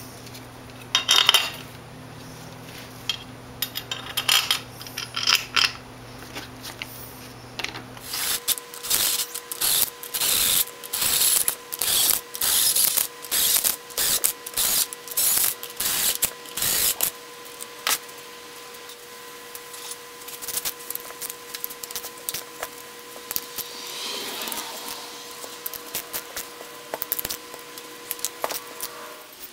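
Cordless drill/driver running case bolts into the two halves of an MTD Vari-drive transaxle, starting about eight seconds in with a quick series of short bursts, roughly two a second, for about nine seconds. Before and after, metal clinks and clicks of bolts and hand tools on the aluminium case.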